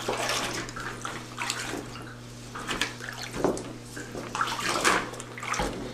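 Liquid photographic chemistry sloshing and splashing in irregular swishes as hands work over a large print while it develops, over a steady low electrical hum.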